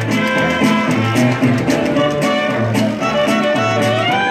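Traditional New Orleans jazz band playing live, horns carrying gliding melody lines over a steady sousaphone bass and a strummed guitar and banjo beat.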